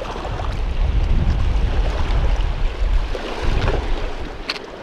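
Wind buffeting the camera's microphone as a heavy low rumble, over water washing against a rocky bank. A sharp click near the end.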